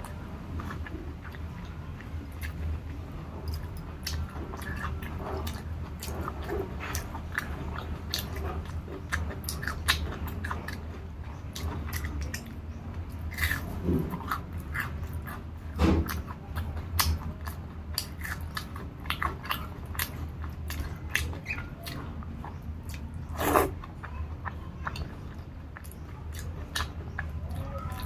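Close-miked chewing and mouth sounds of a person eating rice, dal and curry, with frequent small wet clicks and smacks and a few louder ones, over a steady low hum.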